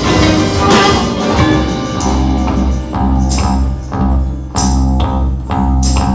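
Live band music with drum kit, bass, guitars and horns. About two seconds in, the dense full-band sound drops back to held bass notes under sharp drum and cymbal hits about every second and a half.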